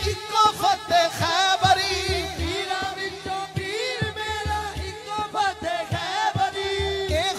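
A male singer performing a manqabat, a Sufi devotional song, live into a microphone, with long wavering held notes over musical accompaniment with a steady drone and a regular beat.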